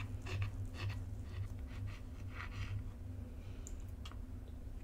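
Table knife and fork cutting through a waffle on a wooden cutting board: scattered soft clicks and short scrapes of the cutlery, over a steady low hum.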